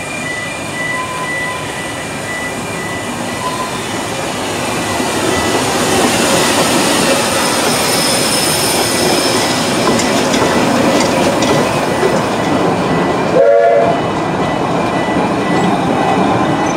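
Narrow-gauge steam locomotive and its carriages rolling slowly past close by, with wheels rattling on the rails. The rumble grows louder about four to six seconds in as the engine draws alongside. A steady high warning tone from the road crossing sounds at first.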